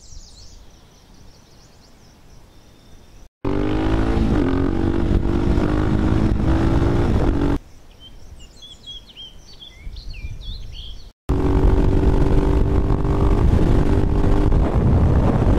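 Birds chirping, then an abrupt cut to a Husqvarna 701 Supermoto's single-cylinder engine running loud through its Akrapovic silencer under way, its pitch shifting briefly and then holding steady. Birdsong comes back for a few seconds, then the engine cuts in again, steady at speed.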